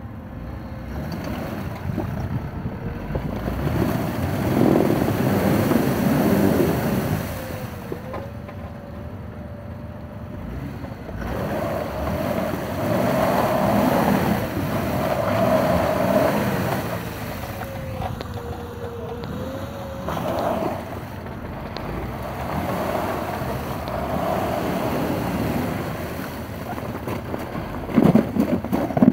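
Jeep Wrangler JK's engine revving in several surges while its mud tires spin and churn through water and mud, throwing it up. A few sharp knocks near the end.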